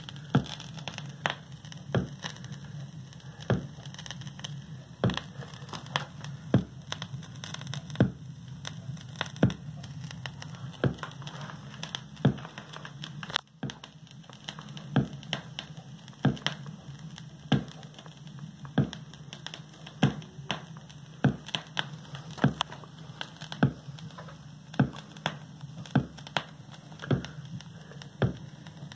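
A vinyl record playing on an Audio-Technica turntable through powered desktop speakers: a steady low hum and hiss with a sharp click or pop about every second and a half.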